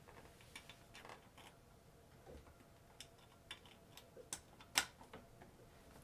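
Faint scattered clicks and taps of a small USB keyboard receiver dongle being handled and pushed into a docking station's USB-A port, the sharpest click about five seconds in.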